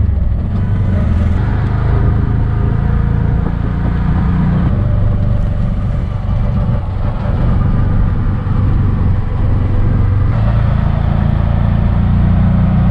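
Auto rickshaw (tuk tuk) engine running as the three-wheeler drives along the road, heard from the open passenger seat with road and wind noise. The engine note drops a little under halfway through and picks up again near the end as it changes speed.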